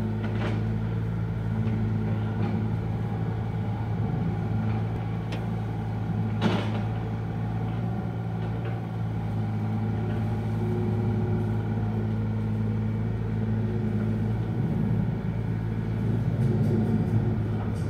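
Excavator's diesel engine running steadily, with one sharp knock about six and a half seconds in and a run of clicks near the end.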